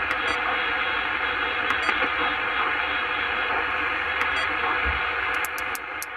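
CB radio receiving in upper sideband with no signal on frequency: a steady hiss of band noise from its speaker while the operator tunes down the band, with a few light clicks near the end as the frequency is stepped.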